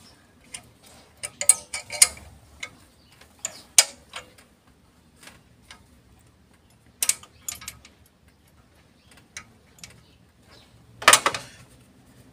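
Metal parts and tools clicking and clinking against an engine's open cylinder head as the camshaft is handled and set into place, in a few scattered clusters, the loudest clatter near the end.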